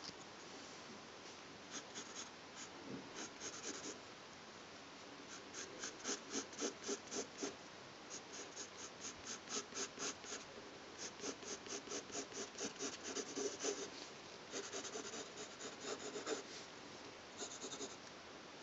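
Graphite pencil scratching on paper in short, quick strokes, often about four or five a second, drawing curved lines. A couple of seconds of steadier scratching comes about three-quarters of the way through.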